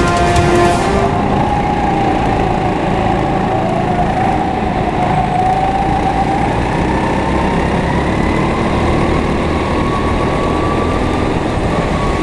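Go-kart engine heard from on board, running hard, its pitch slowly rising and falling as the kart speeds up and slows through the corners.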